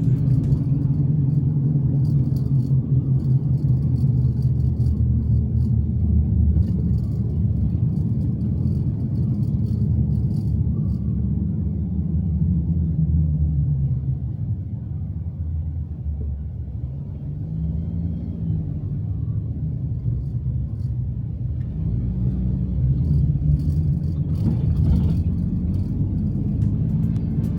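Car driving: steady low engine and road rumble, the engine note rising and falling slightly a couple of times.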